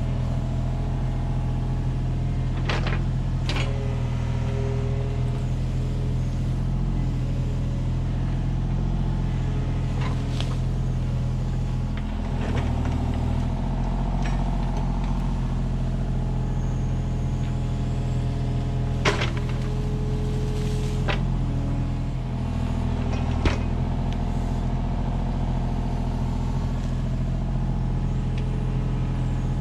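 Kubota U35-4 mini excavator's diesel engine running steadily under working load, easing briefly twice. Several sharp knocks from the machine working, the loudest about two-thirds of the way through.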